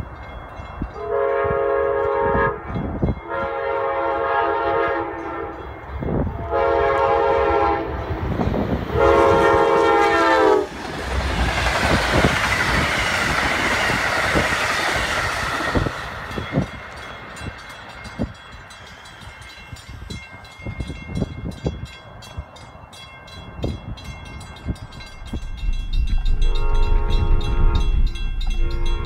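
Amtrak Vermonter passenger train, led by two GE P42 diesel locomotives, sounding its horn in four long blasts. It then passes close by in a loud rush, with the wheels clicking over the rail joints as the cars go by and fade. Near the end the horn sounds again.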